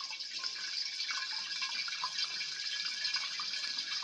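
Water churning and splashing steadily in a glass round-bottom flask, whipped into a bubbly vortex by an overhead stirrer that a hand-blender's DC permanent-magnet motor drives at high speed, near its 30-volt top setting, which is a little bit hectic.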